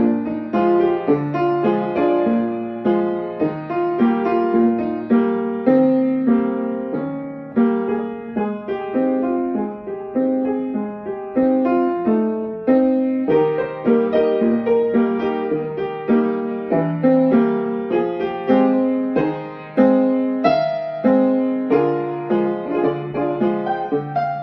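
Piano played with both hands: a continuous flowing stream of melody notes over chords, with new notes struck several times a second.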